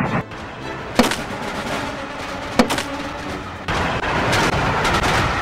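Added sound effects for a running steam locomotive: two sharp bangs about a second and a half apart, then a loud, steady rattling noise that starts a little past halfway.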